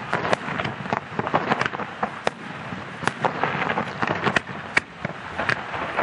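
Aerial firework shells and comets bursting in a rapid, irregular series of bangs and crackles.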